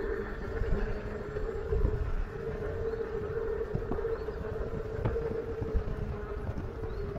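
Electric bike riding along at a steady speed: the motor gives a steady whine, over an uneven low rumble of wind buffeting the microphone and tyre noise on the pavement, with a few light clicks about four and five seconds in.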